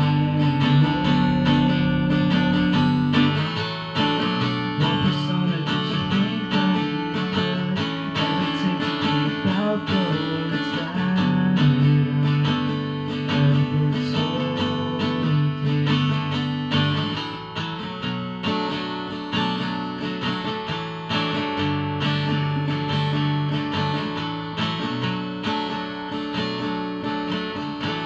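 Acoustic guitar played solo, a run of chords that change every couple of seconds, with no singing.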